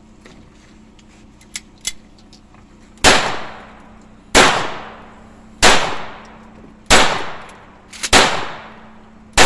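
Handgun fired in slow, steady succession: five shots about a second and a quarter apart, starting about three seconds in, each followed by a short echoing tail, and a sixth shot right at the end. A few light clicks come before the first shot.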